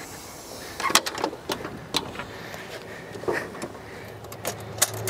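Scattered clicks and clunks from handling an old car: the driver's door being opened and the ignition key being checked.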